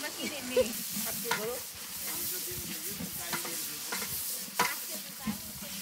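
A long paddle stirring rice-and-lentil khichuri in a large aluminium pot, scraping and knocking against the metal a few times, the loudest knock late on. A steady sizzle from the hot pot runs underneath.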